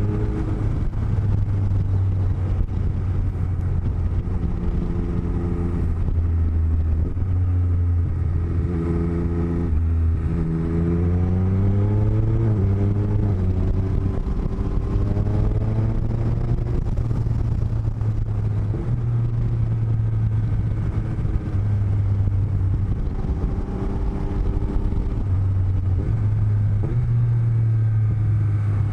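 Motorcycle engine running on the move, heard through microphones inside a helmet's cheek lining, with a steady low wind rumble. About ten seconds in the engine note climbs as it accelerates, then drops back suddenly, as at a gear change.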